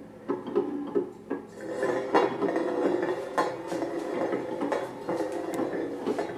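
Several glass and stainless steel pot lids spinning and wobbling on a wooden surface, their rims and knobs rattling and ringing against the wood. Scattered clicks at first, thickening into a continuous rattle about a second and a half in.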